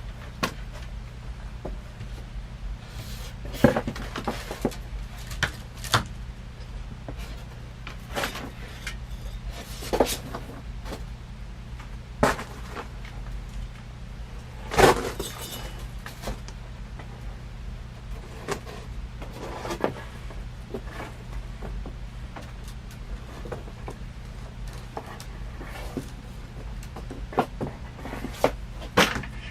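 Irregular clicks, taps and knocks of ceiling-fan parts and tools being handled during assembly, a few of them sharper and louder, over a steady low hum.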